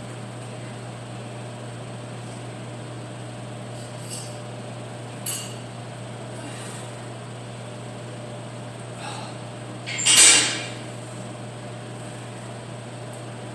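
Steady low room hum under a loaded Smith-machine squat bar, with a few faint knocks from the bar and a louder, short noisy burst about ten seconds in.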